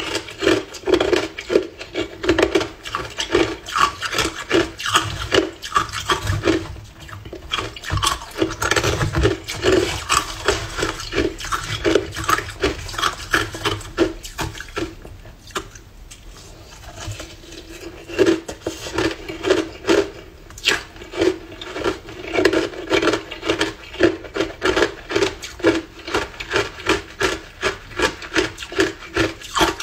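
Close-up crunching of hard frozen ice coated in matcha powder being chewed: a rapid run of crisp crunches, easing off briefly twice in the middle.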